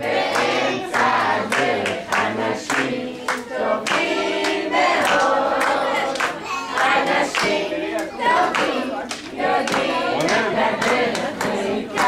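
A group of voices singing a song, with hands clapping along to the beat.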